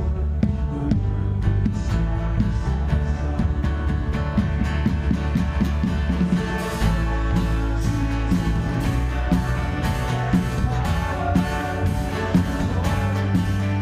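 Worship band playing a song, with guitar, sustained bass notes and a steady drum beat.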